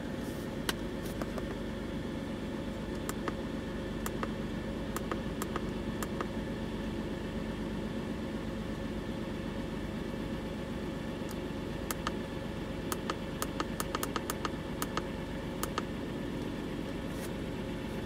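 The 3.7-litre V6 of a 2007 Jeep Grand Cherokee idling steadily at just under 1,000 rpm, heard from inside the cabin. Scattered light clicks of scan-tool buttons and screen being pressed, more of them in the second half.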